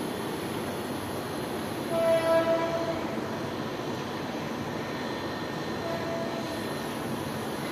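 A distant horn sounds briefly about two seconds in and again, fainter, about six seconds in, over a steady background hum of traffic.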